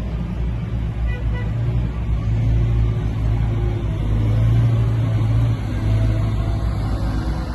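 Engine of heavy construction machinery running steadily: a low drone that swells a little in the middle.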